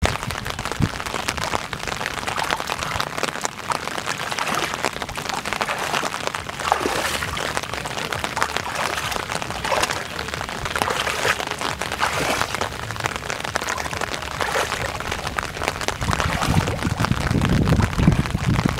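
Heavy rain falling on the open water of a flooded field: a dense hiss of countless drops with a fine crackling patter. A low rumble swells over the last few seconds.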